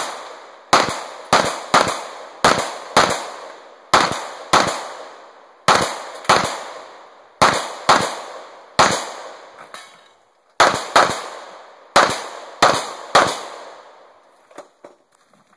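Gunfire: about seventeen sharp shots, many in quick pairs about half a second apart with short pauses between groups, each trailing off in a ringing echo; the shooting stops about thirteen seconds in.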